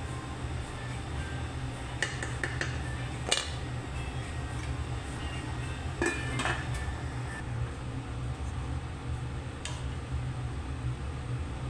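Wooden spoon stirring cooked rice and knocking against a stainless steel pot, with sharp clicks and clinks; about six seconds in, the pot's steel lid clinks as it is set on, and there is another click near ten seconds as it comes off again. A steady low hum runs underneath.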